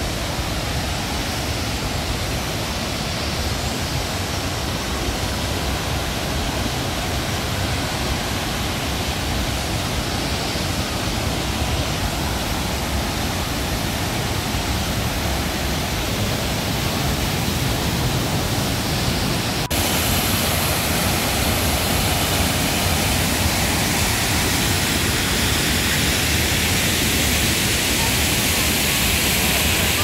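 Triberg waterfalls rushing steadily, an even wash of falling water. About two-thirds of the way through it steps up abruptly, louder and hissier.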